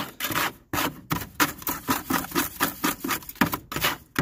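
A small batch of wet white-cement mortar being stirred and ground round a small container, the mixing tool scraping in quick repeated strokes, about three a second.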